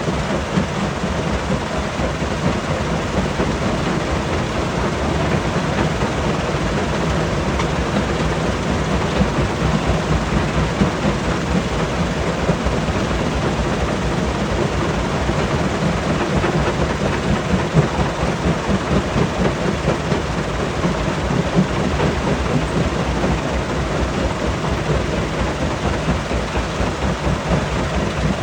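Stone crusher running under load: a steady, loud rumble with a dense, unbroken clatter of rock being broken up.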